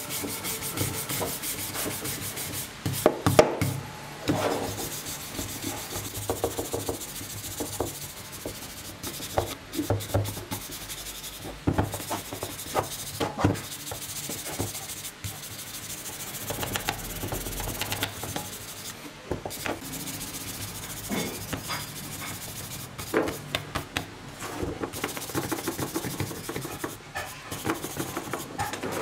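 A stiff hand brush scrubbing the dirty metal housing of an old corded electric drill in quick, uneven strokes, moving onto the rusty chuck near the end.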